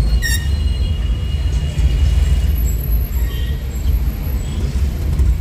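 Busy city street traffic: a steady low rumble of engines and road noise, with faint high tones of horns in the distance during the first couple of seconds.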